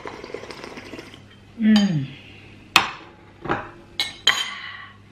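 Slurping the last of the soup broth from a bowl, followed by a voiced 'ahh' that falls in pitch. Then a spoon clinks sharply against the ceramic bowl three times as the bowl is set down.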